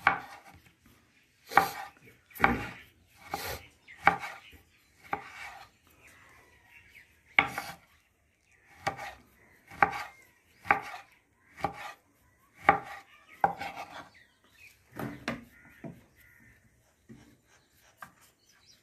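Cleaver-style kitchen knife chopping tomato on a wooden chopping board: single sharp knocks of the blade on the wood, roughly one a second with uneven gaps.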